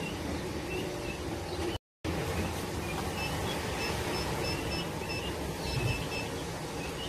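Steady background ambience with faint, short, high chirps repeating in small runs; the sound cuts out completely for a moment about two seconds in.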